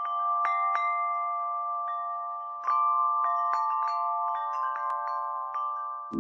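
Music intro of bell-like chime notes, struck at irregular moments and ringing out over a steady held chord. It gets a step louder a little before halfway.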